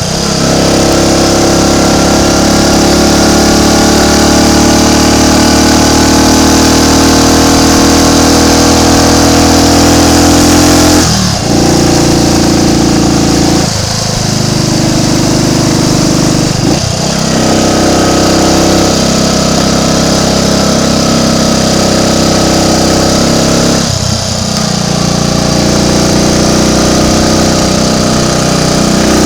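Triumph Tiger Cub's single-cylinder four-stroke engine running as the motorcycle is ridden, its note briefly breaking off and picking up again about four times.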